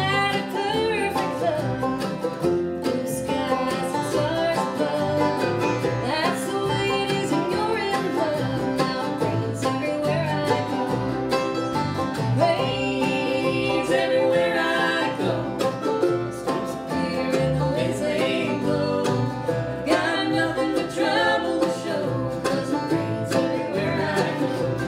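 Bluegrass band playing live: banjo, acoustic guitar, fiddle, mandolin and upright bass.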